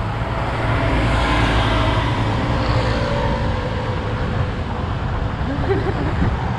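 Steady rushing road and wind noise from riding along a concrete road on a bicycle, with a low rumble that swells about a second in.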